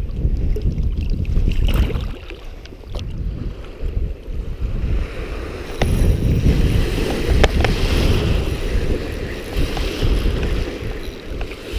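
Strong wind buffeting the microphone in a gusting low rumble, with small waves lapping and a few sharp clicks.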